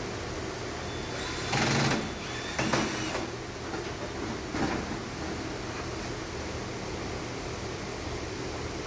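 Handling noises from air-conditioner parts being assembled: a half-second scrape about a second and a half in, a shorter one near three seconds, then a single knock, over a steady low hum.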